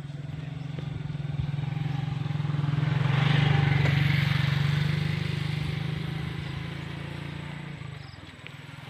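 A motorcycle engine running with a steady hum. It grows louder to a peak about three and a half seconds in, then fades, its pitch dropping slightly near the end.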